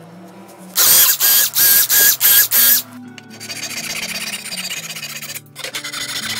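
Five short, loud bursts of a small power tool's motor whining, then a flush-cut hand saw sawing steadily through the end of a hardwood runner to trim it flush with the plywood sled base, with one short pause in the sawing, over background music.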